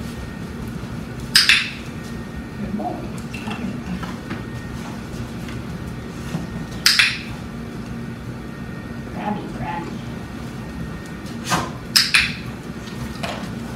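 A few short, sharp clinks: one about a second and a half in, one near seven seconds, and a quick pair near the end, over a steady low room hum.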